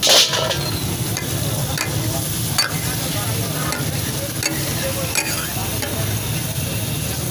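Tomatoes frying in hot oil on a large flat metal takatak griddle (tawa), sizzling steadily as a metal spatula pushes them through the oil. The sizzle flares loudly at the start. Sharp clicks of the spatula on the griddle come about once or twice a second.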